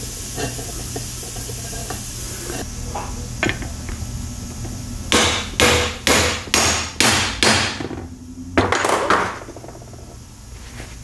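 Hammer blows driving the greased, sealant-coated rear yoke seal into a Super T10 four-speed transmission: light taps first, then six sharp strikes about two a second, and a final longer hit near the end.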